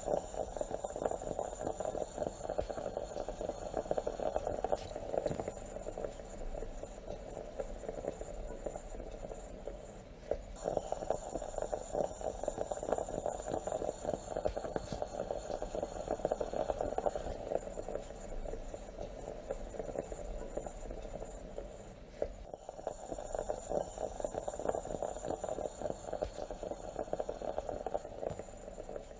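Stovetop moka pot bubbling and sputtering steadily as the coffee comes up, a dense fizzing crackle that dips briefly twice.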